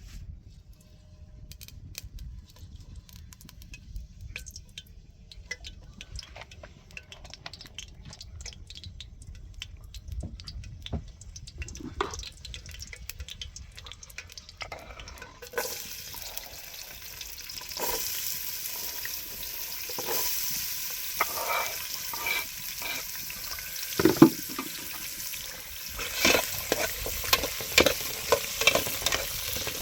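Food sizzling as it fries in a pot, with a utensil stirring and knocking against it; the sizzling starts about halfway in. Before that, only a low rumble and scattered light clicks.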